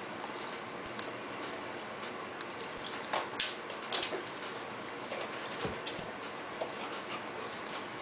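A dog making short, scattered noises while playing with a small ball, the loudest about three and four seconds in.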